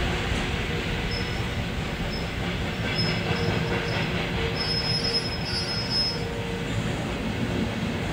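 Suburban train running on the rails, heard from inside its rear vestibule: a steady rumble of wheels on track, with thin high-pitched wheel squeals coming and going from about a second in until about six seconds in.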